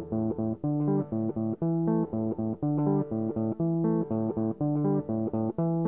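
Background music: a steady run of short plucked notes repeating a riff.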